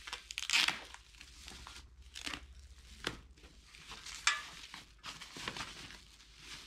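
Thin plastic protective wrap crinkling and rustling as it is peeled open and pulled off a metal TV stand piece, in several separate bursts, the sharpest about four seconds in.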